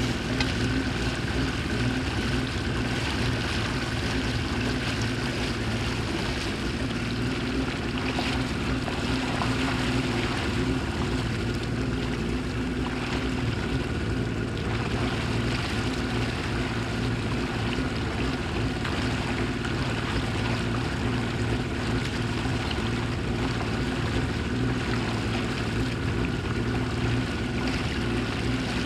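Boat motor running steadily at an even pitch.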